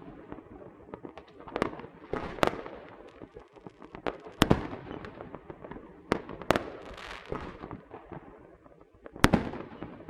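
Small fireworks and firecrackers going off: sharp bangs at irregular intervals, about six loud ones, with smaller crackles between and a brief hiss about seven seconds in.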